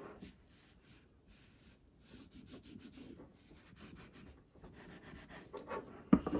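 Cricut Mini EasyPress sliding and rubbing over cotton fabric as seams are pressed flat: a faint, scratchy rustle of fabric handling. A louder knock near the end.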